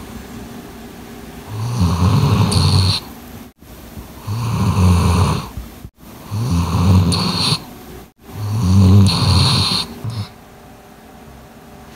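A sleeping Doberman snoring heavily: four loud snores, each about a second and a half long, coming roughly every two seconds.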